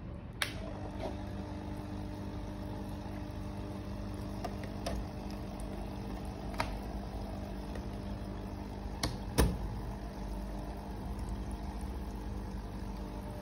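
Small aquarium air pump humming steadily as it bubbles air into the water of a small plastic fish tank, with a few light clicks and knocks from the plastic tank and lid being handled; the loudest knock comes about nine seconds in.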